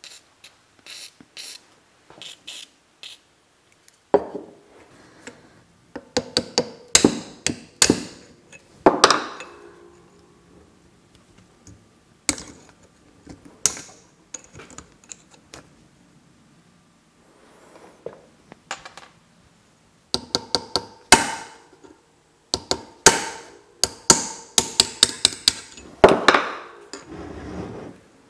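Short hisses of aerosol penetrating spray in the first few seconds. Then come clusters of sharp metallic clinks and taps, some with a brief ring, as small steel tools pry at the internal snap-ring clips of a Spicer universal joint in a front axle shaft yoke.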